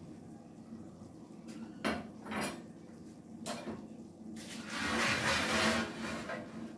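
Kitchen handling sounds on a stovetop: a few light clinks of metal utensils and cookware, then about two seconds of louder rustling near the end.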